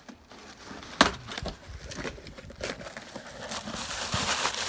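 A delivery box being opened by hand: a sharp snap about a second in, then crinkling and tearing of packaging that grows louder toward the end.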